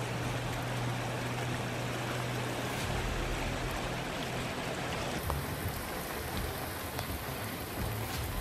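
Muddy floodwater rushing through a swollen river channel: a steady noise of churning, fast-moving water. About five seconds in the sound changes to a different steady hiss.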